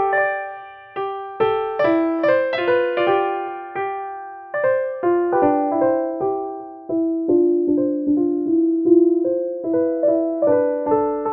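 Slow background piano music: single notes and soft chords struck one after another and left to fade.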